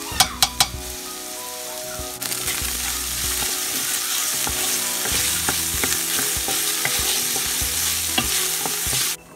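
Diced carrots, celery and onion sizzling in a stainless steel pot as tomato paste is stirred in with a wooden spoon. A few sharp knocks near the start, and the sizzling grows louder about two seconds in, then cuts off just before the end.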